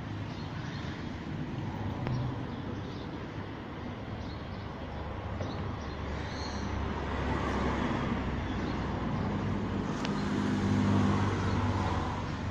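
Low, steady rumble of road traffic or a running car engine. The hum swells from about seven seconds in and eases near the end.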